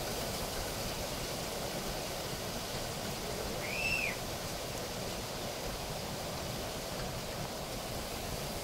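Heavy rain pouring down, a steady even hiss. About four seconds in, a single short high whistle rises and falls.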